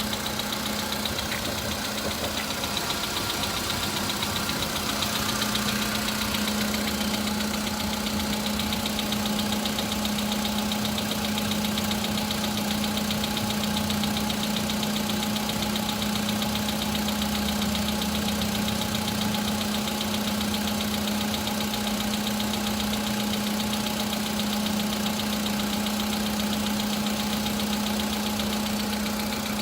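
VW Polo's 1.6-litre CFNA four-cylinder petrol engine idling on a cold start with a rapid metallic knock over the steady idle. The knock grows fainter over the first ten seconds or so as the engine warms. It is the cold-start piston knock that this engine's pistons were replaced for under warranty.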